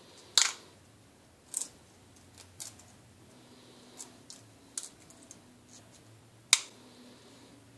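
Eggshell crackling as a hard-boiled egg is peeled by hand: a scatter of short, sharp clicks, the loudest about half a second in and again near the end.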